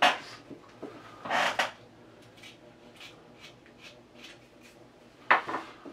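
Carving knife taking short slicing cuts into a small wooden bust: a few brief scraping strokes, the clearest about a second and a half in and another near the end, with faint ticks and clicks of handling between.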